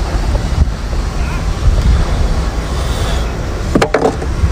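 Wind buffeting the microphone: a steady, loud low rumble. A brief, sharper sound cuts through about four seconds in.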